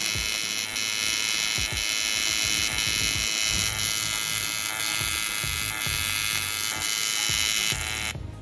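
AC TIG welding arc from a Taiwan Power TIG-200ADP inverter welder set to square-wave AC with pulse: a steady high electric buzz with a low throb from the pulsing current. The arc cuts off sharply about eight seconds in.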